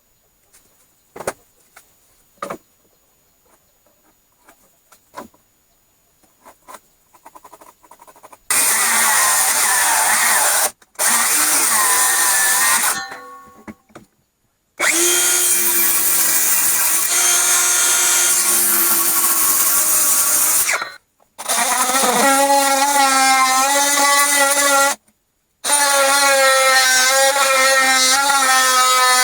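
Electric power tool working wood in several loud runs of a few seconds each, its pitch dipping under load and winding down when released. Before the first run come a few light knocks and clicks.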